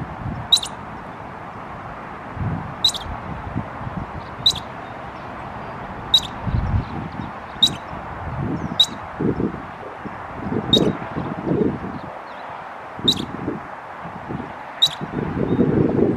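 California ground squirrel giving its alarm chirp: about nine short, sharp, high chirps, spaced every one and a half to two seconds.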